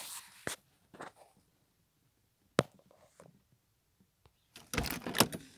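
Scattered clicks and rustling from a hand-held camera being handled and moved. There is one sharp click about two and a half seconds in and a burst of rustling and clicks near the end.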